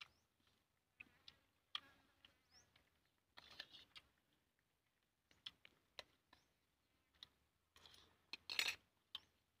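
Quiet, scattered clicks and short scrapes of a spoon against plastic plates while food is scooped up, with the loudest scrape near the end.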